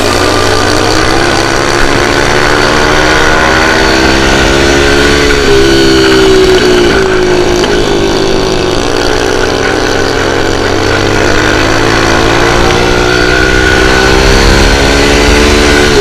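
Dirt bike engine running hard under the rider, its revs climbing, dropping back briefly around 6 seconds in, sagging again mid-way and climbing once more near the end.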